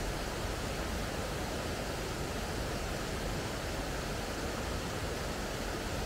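Cascade of falling water, rushing steadily and evenly.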